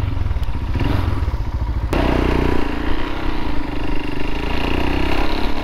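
Royal Enfield Himalayan's single-cylinder engine running with even low pulses. A knock about two seconds in, after which the engine runs louder as the bike pulls away.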